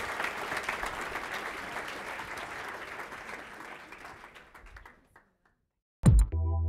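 Audience applauding, thinning and dying away after about five seconds. After a moment of silence, electronic music starts near the end with a sudden loud hit and a held synthesizer chord.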